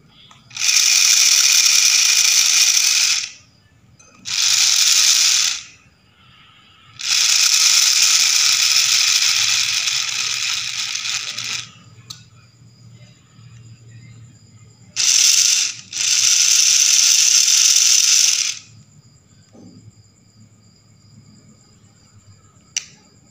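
Small electric motor driving a homemade RC gearbox, switched on and off in five runs of one to five seconds each, with a rattling, ratcheting gear noise.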